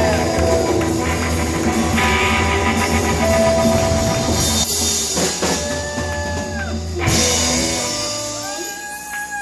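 Live rock band jamming on guitar and drum kit, with long held notes that bend at their start and end. The low bass note drops out near the end and the music gets quieter.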